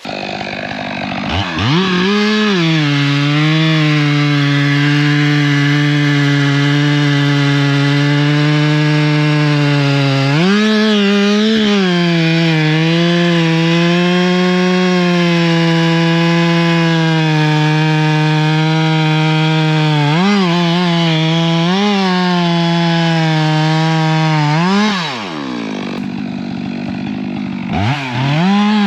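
Chainsaw revving up about a second in and running at high revs, cutting, with brief rev surges, dropping to idle near the end and then revving up again. The chain is dull from being run into the dirt.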